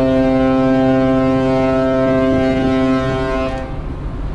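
Ship's horn sounding one long, steady, deep blast that cuts off about three and a half seconds in, leaving wind on the microphone.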